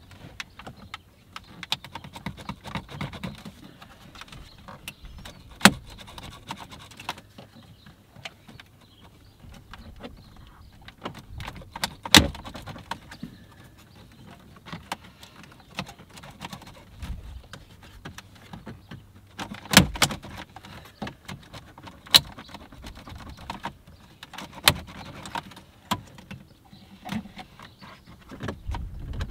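Plastic centre dash trim panel of a Ram 2500 being pulled hard by hand to free it: rattling and creaking trim with a series of sharp clicks and snaps as its clips let go, the loudest about twelve seconds in and twice around twenty seconds.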